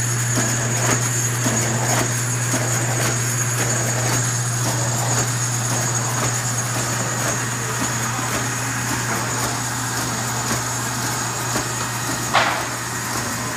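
Rollem JetSlit rotary business card slitter and its C.P. Bourg sheet feeder running, a steady machine hum with a constant high whine and light clicking as sheets feed through. There is a brief sharper swish near the end.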